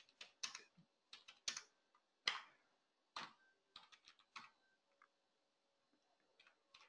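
Faint computer keyboard typing: irregular single keystrokes for about four and a half seconds, a pause, then a couple of faint taps near the end.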